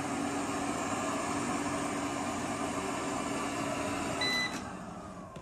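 Eufy robot vacuum running over carpet with a steady whirring hum. About four seconds in it gives a short beep, then its motor starts to wind down, the hum dropping away and a tone falling slowly in pitch.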